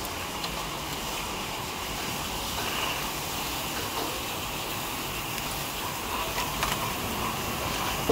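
Steady background noise of a busy roadside food stall, with a few faint clinks of metal utensils.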